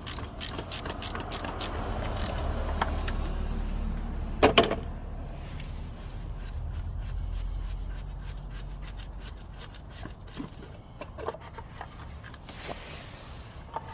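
Ratchet clicking as a 1 1/4 inch socket works the oil filter housing cap of a Chevy Cobalt, followed by scraping and handling noises over a low steady hum. A sharp double knock comes about four and a half seconds in, then scattered light clicks.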